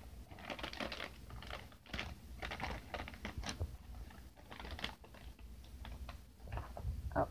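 Rustling and crinkling of cardboard and plastic packaging handled by hand: a run of irregular light clicks and crackles.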